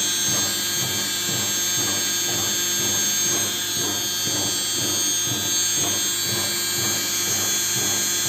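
Bosch washing machine's brushed universal motor running steadily at about 800 rpm with a steady whine, spun up to polish its commutator under new brushes.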